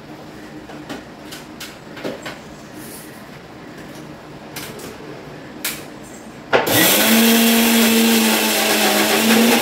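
A few light clicks and knocks, then about six and a half seconds in an electric mixer grinder switches on loud and runs, its motor whine rising slowly in pitch as it spins up, grinding grated coconut with green chillies and cumin into a paste.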